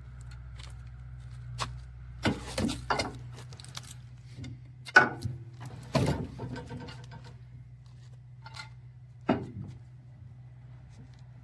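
Several sharp wooden knocks and clunks, the loudest about five and six seconds in, over a steady low hum.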